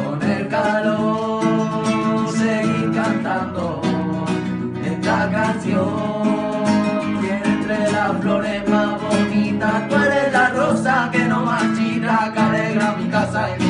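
Nylon-string Spanish guitar strummed in a steady flamenco rumba rhythm, with a man's voice singing a drawn-out, wordless melodic line over it.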